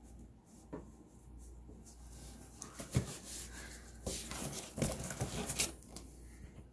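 Cardboard box and foam packing peanuts being handled by hand: quiet at first, then a run of rustles, scrapes and knocks through the second half.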